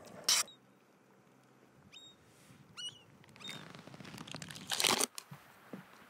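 Handling noise from a collapsible camping pot and spoon: a short scrape just after the start and a longer rustling scrape about five seconds in, with a few faint high chirps in between.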